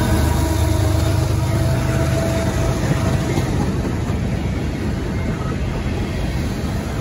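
Canadian Pacific freight train passing close by. A diesel locomotive's engine hum fades over the first three seconds, then loaded covered hopper and tank cars keep rolling past, their wheels rumbling on the rails, slowly getting quieter.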